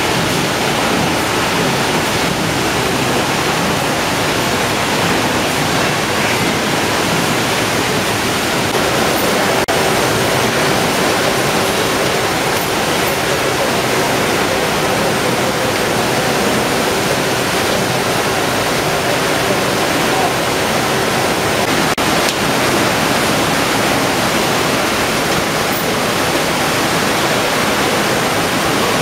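Steady loud din of a fish-processing line: conveyor machinery running and wash water splashing over the belts. A faint steady hum joins in about nine seconds in and stops about two-thirds of the way through.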